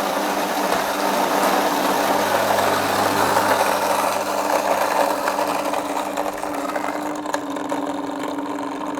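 Built-in coffee grinder of a Gevi 4-in-1 pour-over coffee machine running steadily as it grinds a 20 g dose of beans, a motor hum that eases slightly over the last few seconds.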